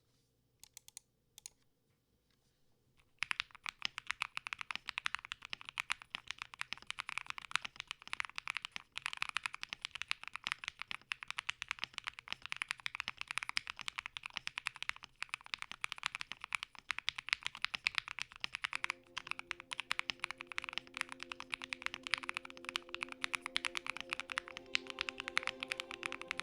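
Fast, continuous typing on a Thera75 mechanical keyboard with JWK Silk switches, after a few single key presses at the start. Soft background music comes in under the typing for the last several seconds.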